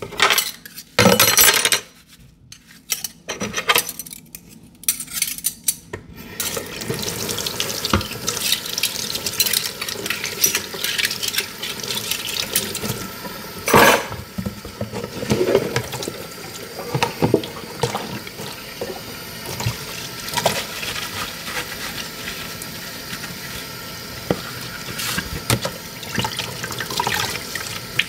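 Washing dishes by hand at a sink. For the first six seconds, plates and cutlery clink against each other in separate knocks. Then the tap runs steadily into the sink while dishes keep clattering under the water, with one loud clatter about fourteen seconds in.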